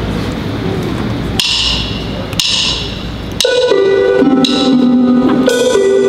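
A steady noisy rumble gives way to two sharp percussive taps about a second apart, then about halfway through a live band starts a song's intro with sustained keyboard chords struck about once a second.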